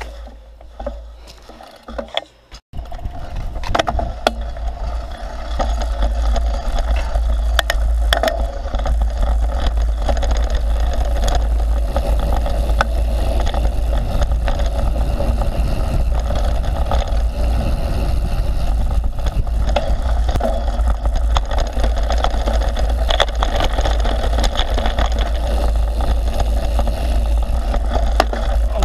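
Mountain bike riding downhill on a dirt and gravel trail, heard from a camera on the bike: wind buffeting the microphone in a heavy low rumble, tyre noise, and the bike rattling and clicking over stones and bumps. It is quieter for the first two or three seconds while the bike barely moves, then loud and continuous once the ride gets going.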